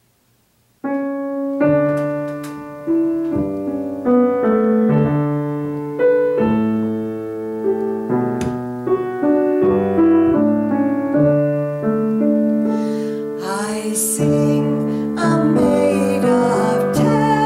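Grand piano playing a slow hymn introduction in chords, starting about a second in. In the last few seconds a woman's voice comes in, singing the hymn over the piano.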